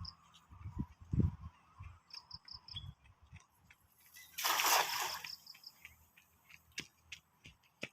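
A single loud splash of water about halfway through, lasting under a second. Faint low thumps come before it, and short high chirps sound in the background.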